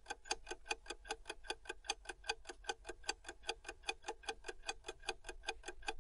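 Clock-ticking sound effect under a quiz countdown timer: fast, even ticks, several a second, with a slight alternating tick-tock pattern.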